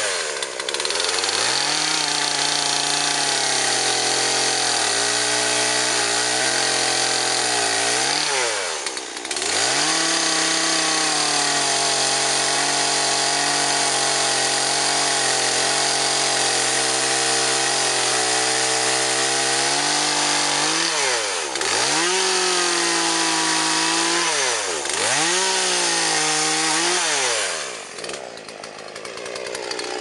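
Two-stroke chainsaw held at full throttle while cutting limbs off a horse chestnut tree. The engine drops and picks up again once about nine seconds in and several times in quick succession in the last third, then settles lower near the end.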